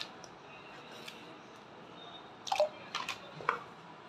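Kitchen knife scraping and cutting the skin off an elephant foot yam, a cluster of short scrapes about two and a half seconds in.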